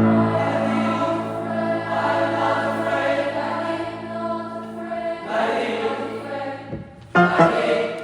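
School choir singing held chords over sustained low notes; about seven seconds in, after a brief drop, a loud accented chord comes in.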